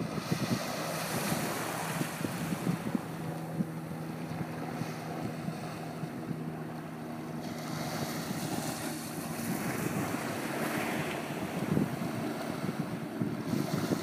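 Small waves washing up and lapping on a sandy shore, with wind buffeting the microphone. A steady low hum runs underneath for the first several seconds, then fades.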